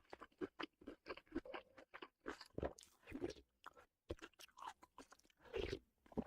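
Close-miked mukbang eating: a person biting and chewing crunchy food, a fast, uneven run of crisp crunches.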